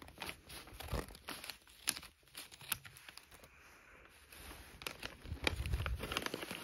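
Christmas wrapping paper being cut with small scissors, then torn and crinkled open by hand: irregular crackling and rustling with sharp clicks, busier near the end.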